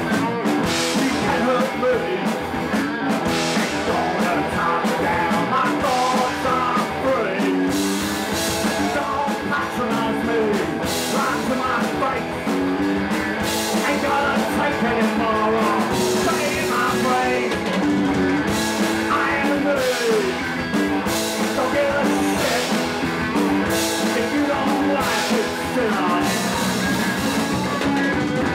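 Punk rock band playing live, with electric guitar, drums and a singer, going steadily throughout.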